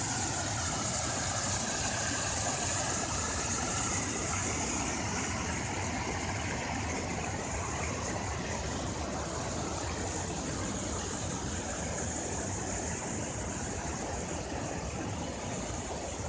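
Water pouring over a concrete dam spillway and rushing down rocky rapids: a steady rush of white water, easing slightly after the first few seconds.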